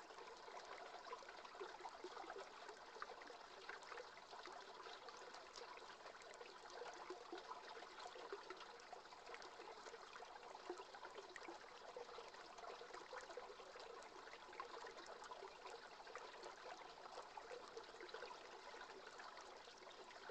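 Faint, steady rush and trickle of a river's current flowing past the bank.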